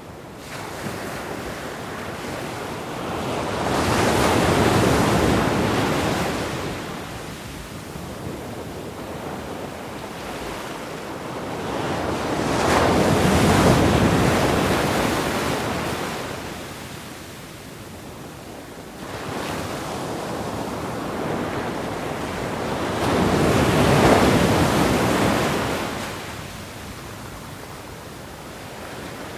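Sea waves washing in, the surf swelling and fading in three long surges about ten seconds apart.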